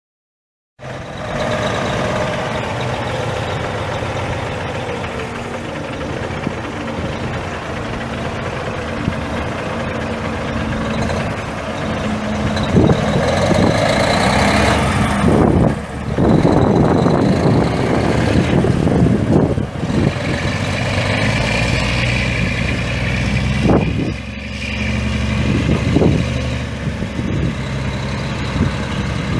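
A 2005 Kenworth T600 semi truck's Cummins ISX 14.9 L inline-six turbo diesel engine running steadily, with a louder, rougher stretch about halfway through.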